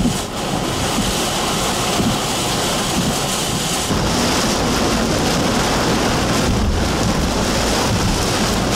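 Heavy rain beating on a car's roof and windshield in high wind, heard from inside the car; it grows heavier about four seconds in.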